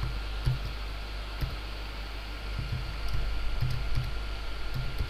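A few sparse computer keyboard keystrokes over a steady background hiss and low hum.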